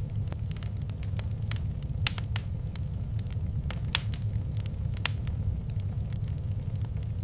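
Fireplace wood fire crackling: irregular sharp pops and snaps, a few louder ones about two, four and five seconds in, over a steady low rumble.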